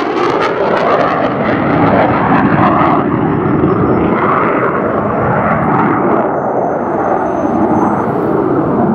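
Boeing F/A-18F Super Hornet's twin General Electric F414 turbofan engines running loud as the jet flies away after a pass. The hiss fades out over the first few seconds, leaving a steady low rumble.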